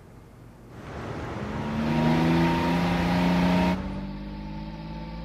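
Car engine and road noise swelling as a car drives off, then dropping abruptly about four seconds in to a quieter, steady engine hum as heard inside the car's cabin.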